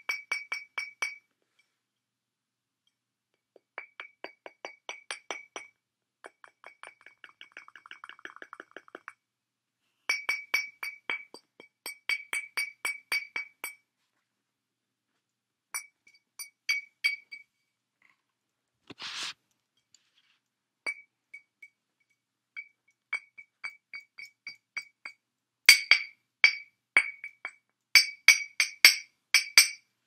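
An empty glass wine bottle lying on its side is tapped in quick runs of several taps a second, each tap ringing at the same clear pitch, with pauses between the runs. There is one short rasping noise about two-thirds of the way through.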